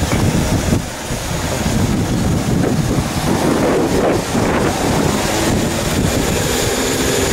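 Southern class 313 electric multiple unit pulling away and passing close by, a steady rumble of the train on the rails, with heavy wind noise on the microphone.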